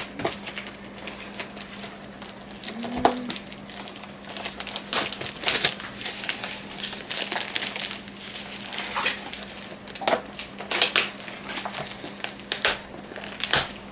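Plastic packaging crinkling and rustling in short, irregular crackles as a laptop accessory is worked out of its wrapping.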